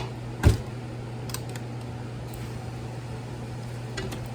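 Bench vise being tightened on a small ferrite transformer: one sharp knock about half a second in, then a few faint clicks, over a steady low hum. The ferrite core does not crack.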